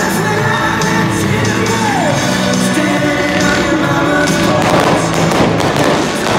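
A song with singing played loud over a stadium sound system, mixed with the bangs and crackling of fountain and aerial fireworks. The crackling thickens in the last couple of seconds as aerial bursts open.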